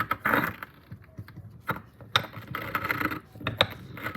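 Pestle grinding a turquoise bead to fine powder in a mortar: gritty scraping and crunching in repeated, uneven strokes, with sharp clicks of stone on stone.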